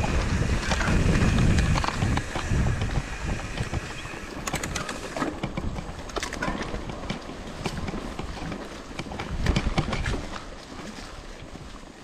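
Mountain bike ridden over a rough trail: tyre noise and scattered rattling knocks from the bike, with wind buffeting the microphone, heaviest in the first few seconds.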